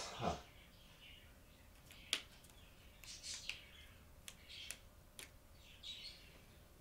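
A few sharp clicks of felt-tip markers being handled and capped, the loudest about two seconds in, with faint high chirps between them.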